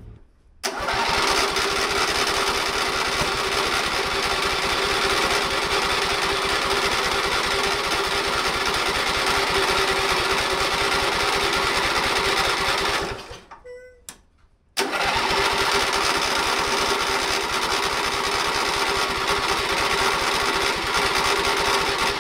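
John Deere L120 lawn tractor engine running steadily at a loud, even level. It drops out for about a second and a half about two-thirds of the way through, then comes back just as loud.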